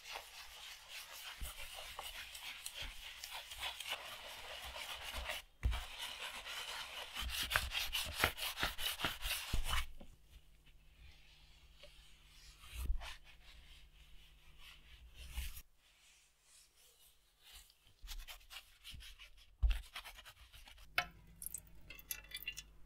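Hand rubbing and scrubbing on a leather covering: about ten seconds of dense, scratchy strokes, then scattered shorter rubs and light handling knocks.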